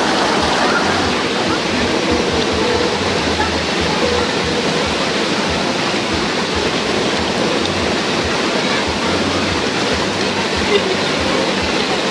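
Waterfall rushing, a steady, unbroken wash of falling water.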